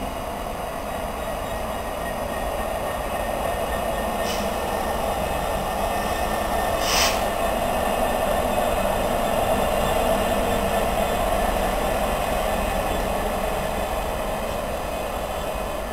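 Euro Cargo Rail Class 66 diesel locomotive (two-stroke EMD V12) running light past at moderate speed: a steady rumble that swells as it goes by and eases as it draws away. Two brief high squeaks cut through, about four and seven seconds in, the second louder.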